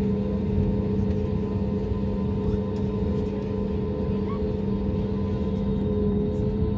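Cabin drone of an Airbus A320neo's turbofan engines running at low taxi power, heard over the wing: an even, unchanging low hum with a few steady higher tones, not yet spooling up for takeoff.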